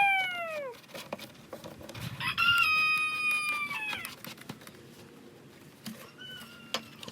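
Long drawn-out animal calls: one dropping in pitch at the start, a longer, steadier and louder one about two seconds in, and a short faint one near the end.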